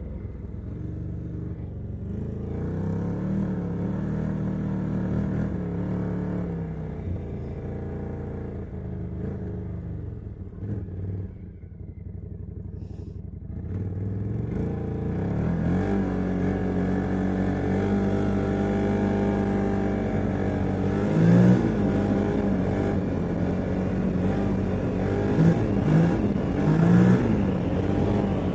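CFMoto ATV engine running while being ridden, its pitch rising and falling with the throttle; the machine has a leaking exhaust. It eases off and gets quieter around the middle, then runs louder, with quick blips of revs in the second half.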